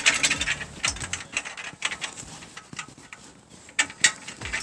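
Irregular metal clicks and knocks of hand tools and loose hardware being handled while bolts and nylon lock nuts are fitted on a sawmill saw head.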